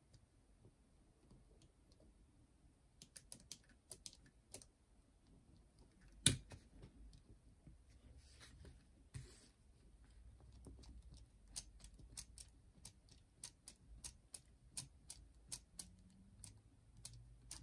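Faint clicks and taps of small parts being handled in the cassette mechanism of a JVC M70 boombox, with one louder knock about six seconds in and a run of clicks roughly twice a second near the end.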